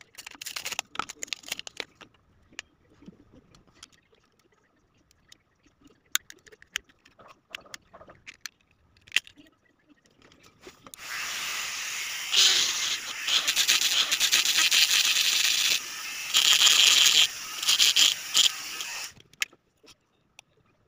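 Plastic packaging and a plastic correction tape dispenser being handled and opened: crackling and sharp plastic clicks, then a steady scratchy scraping on plastic for about eight seconds that starts about eleven seconds in and rises and falls in steps.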